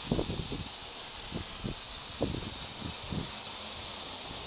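A steady high hiss with a few soft, irregular low knocks.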